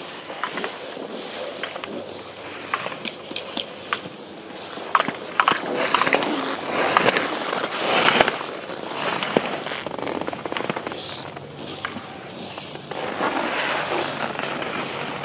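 Slalom skis carving and scraping over hard-packed snow, with many sharp clacks as gate poles are struck. The loudest moment is a hissing scrape about eight seconds in as the skis throw up snow spray in a turn.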